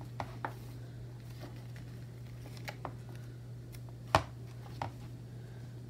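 Light clicks and small paper sounds of a sticker sheet and planner pages being handled as a small sticker is peeled off the sheet, the sharpest click coming about four seconds in. A low steady hum runs underneath.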